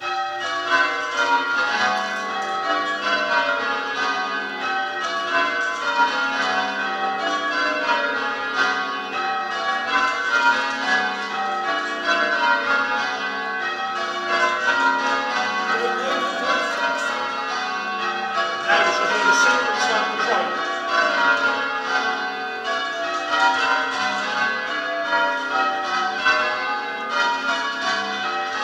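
Church bells in change ringing, each bell struck in turn in a quick, even rhythm. The ringing starts right at the beginning.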